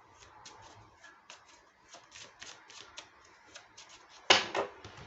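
A deck of oracle cards being shuffled by hand: quick crisp riffles and rustles, with one louder sharp slap of cards a little over four seconds in.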